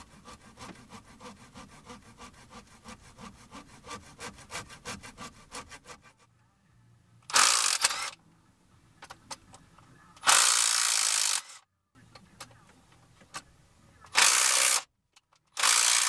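A saw cutting through rubber exhaust hose in quick, even back-and-forth strokes for about six seconds. After a pause come four loud bursts of rushing air, each about a second long.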